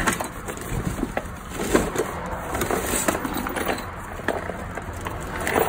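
Cardboard boxes and their contents being rummaged through by hand: irregular rustling, scraping and light knocks of cardboard and loose items, with a louder knock near the end. A low steady rumble runs underneath.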